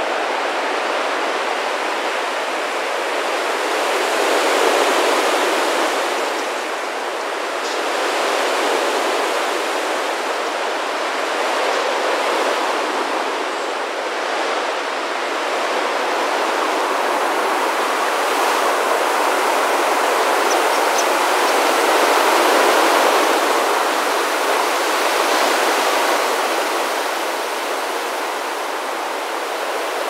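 Rushing whoosh of a dense starling murmuration's wingbeats, a steady hiss that swells and eases several times as the flock wheels.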